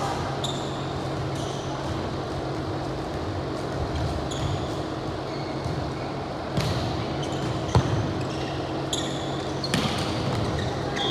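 Volleyball play on an indoor court: a few sharp ball hits, the loudest about eight seconds in, with short high sneaker squeaks on the floor. A steady hum runs underneath.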